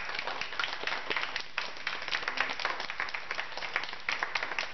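A small group applauding: many hand claps packed close together, going on steadily.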